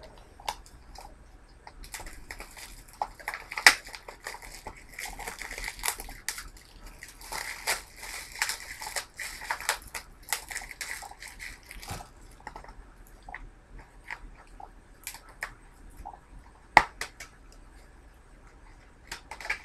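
Crinkling and crackling of plastic shrink wrap as it is torn and peeled off a DVD case, with a few sharp plastic clicks, the loudest about three seconds before the end.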